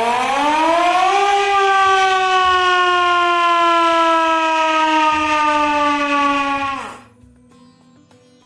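Hand-cranked mechanical siren wound up by hand: its wail climbs steeply in pitch over about the first second, then holds while sagging slowly as the cranking eases, and stops abruptly about seven seconds in.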